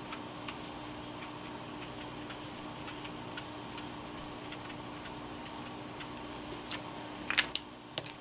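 Light, scattered ticks of a Tombow brush marker dabbing colour onto cardstock over a steady low hum. Near the end comes a quick cluster of sharp plastic clicks as the markers on the table are handled to change colour.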